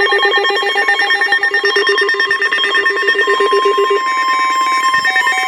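Emergency alert tones announcing a severe thunderstorm warning over NOAA Weather Radio: a loud, rapid warbling electronic alarm, joined about three seconds in by a steady single tone near 1 kHz.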